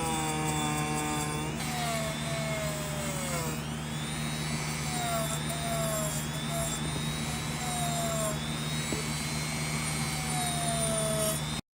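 Small electric power tool motor running steadily, with whining tones that slide down in pitch as it works. It cuts off abruptly near the end.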